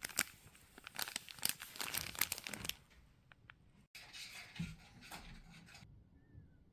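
Crinkling and rustling of something being handled: a run of sharp crackles for about three seconds, then after a short break a softer rustle that dies away.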